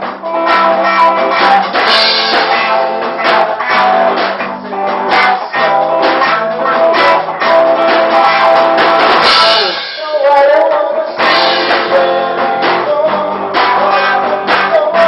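Rock band playing live in a small room: electric guitars, bass and drum kit with a steady beat. The band thins out briefly about ten seconds in before the full sound comes back.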